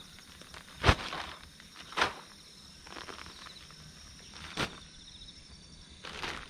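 A few separate dull thumps from someone walking on tilled soil and handling fertilizer bags, the loudest about a second in. Insects trill faintly in the background.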